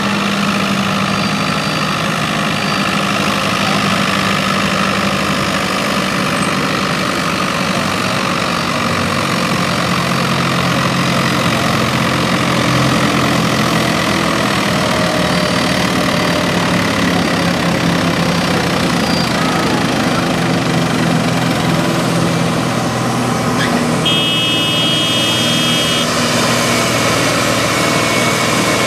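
Tractor diesel engine running hard under load, pulling a weight-transfer sled with a steady drone. About two-thirds of the way through, a short high-pitched tone sounds for about two seconds.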